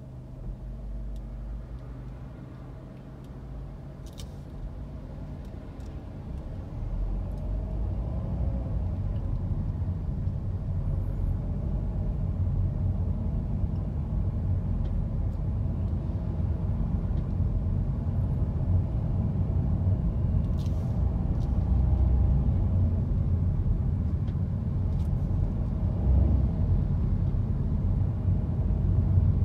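Car cabin noise: a steady low engine hum while stopped, then from about six seconds in the car pulls away and a louder low rumble of engine and tyres on the road builds and carries on.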